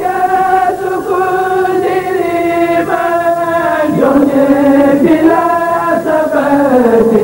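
Sung devotional chant in Arabic, voices holding long notes on a slowly moving melody that steps down to a lower note near the end.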